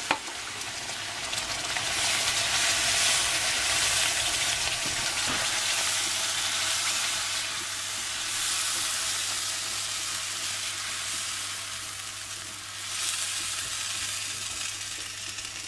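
Vegetable broth sizzling in a hot frying pan of toasted cracked green spelt and onion just after being poured in to deglaze it, stirred with a spatula. A steady hiss that swells and eases a few times.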